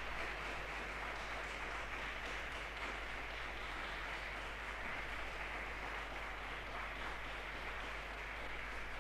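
Audience applause on a 1966 live concert tape, with a steady low hum under it.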